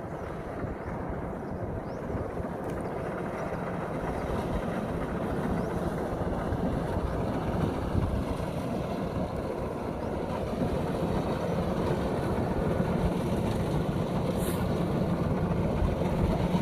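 Kubota DC-105X combine harvester's diesel engine running steadily, a continuous mechanical drone that slowly grows louder.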